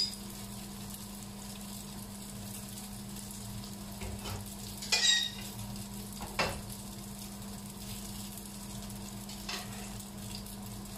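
Spaghetti and bacon sizzling steadily in a hot frying pan, the freshly drained pasta bringing down the pan's temperature. A couple of light clinks and knocks of kitchenware come about five and six and a half seconds in.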